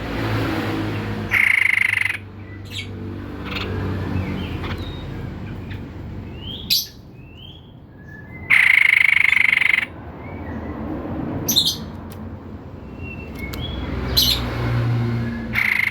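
White-breasted babbler (tepus dada putih) calling: short chirps and clicks with a few brief rising whistles, broken twice by a loud harsh buzzing call of over a second, about one and a half seconds in and again after eight seconds. A steady low hum runs underneath.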